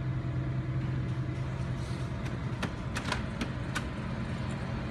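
HP Color LaserJet Pro laser printer running a print job on a label sheet: a steady mechanical hum, with a run of sharp clicks about two to four seconds in as the sheet feeds through.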